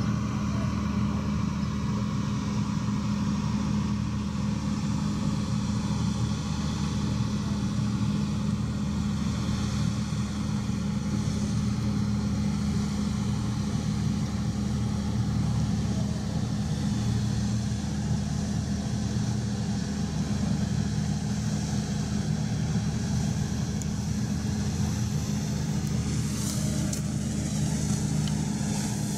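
Steady low drone of diesel machinery running at a constant speed, with an even hum that neither rises nor falls.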